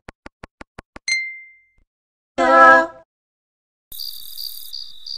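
A run of edited-in sound effects. First about six quick, evenly spaced clicks, then a single bell-like ding that rings away. Next comes a short, loud pitched tone of about half a second, and then, near the end, crickets chirping in a steady rhythm.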